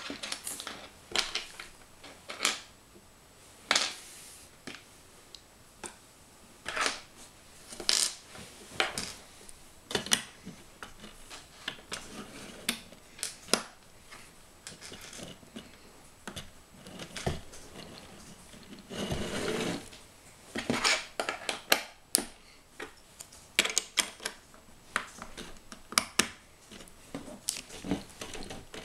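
Plastic Lego bricks clicking and clattering as pieces are picked up and pressed together, in irregular single clicks with a longer rustling clatter about two-thirds of the way through.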